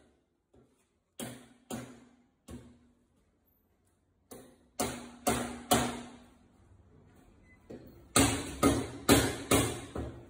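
A dozen or so sharp metallic knocks, each ringing briefly. They come singly and in quick runs about half a second apart, and the loudest are near the end.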